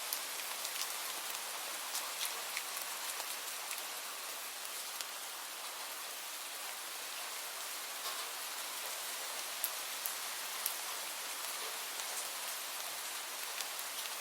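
Light rain falling steadily, an even hiss with scattered close drop ticks.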